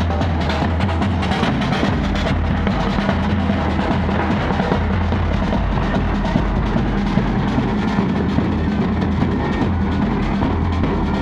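Marching band's bass drums and snare drums beating together, with music playing over them. The playing is loud and steady, with a dense run of quick strikes and steady low tones underneath.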